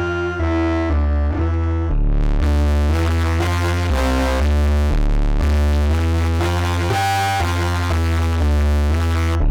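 Synthesizer sequence, a stepping bass line under pitched note stacks, run through the Glitchmachines Subvert distortion plugin. About two seconds in, the distortion adds a dense noisy layer over the high end, which drops out just before the end.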